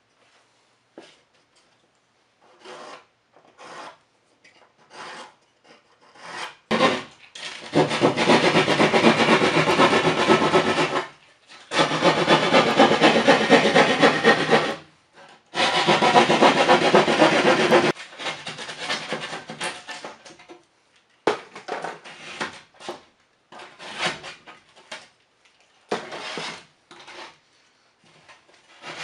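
Drywall being cut by hand with a drywall saw: three long runs of fast rasping saw strokes, then scattered lighter scrapes and knocks as the cut is finished.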